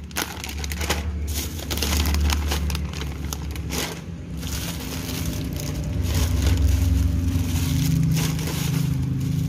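A thin plastic shopping bag and the plastic snack wrappers inside it, rustling and crinkling irregularly as packets are handled and moved about. A low steady hum runs underneath, and grows more noticeable in the second half.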